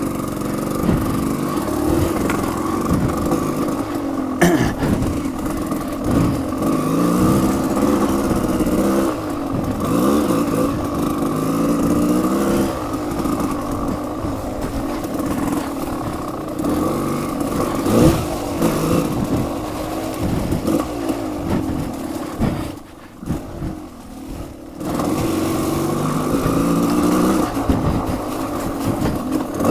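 Off-road motorcycle engine revving up and down as the bike picks its way over slick rocks. The engine note falls away for about two seconds near the 23-second mark, then picks up again.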